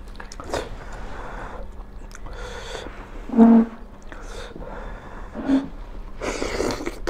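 Maggi instant noodles being slurped and chewed: a series of short, wet sucking slurps, with a longer slurp near the end, and a brief voiced grunt about halfway through.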